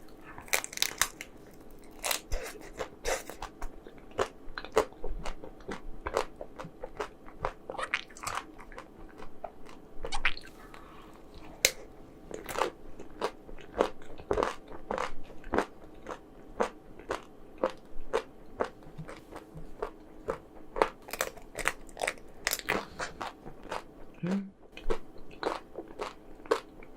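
Close-miked eating of frozen chocolate-coated ice cream: crisp crunching bites and chewing, with sharp crackles coming irregularly about once or twice a second.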